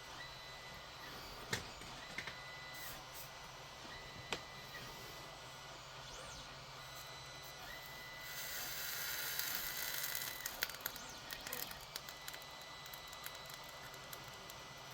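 Soldering work: a hiss of about two seconds past the middle, as flux and solder sizzle under the iron during desoldering with solder wick, followed by small scattered clicks and crackles. A few sharp clicks come earlier, and a faint high tone keeps switching on and off throughout.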